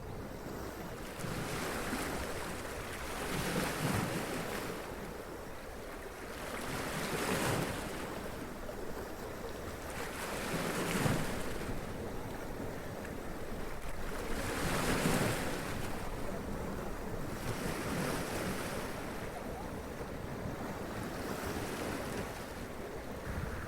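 Sea waves splashing and running up onto rocks, each wave surging and washing back every three to four seconds, with some wind noise on the microphone.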